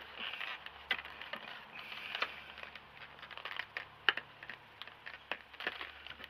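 Light, irregular clicks and rustling of a clear plastic Funko Pop box protector and its cardboard box being handled.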